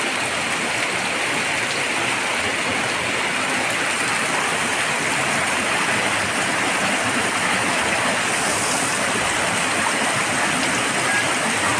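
Heavy rain pouring steadily onto a waterlogged street.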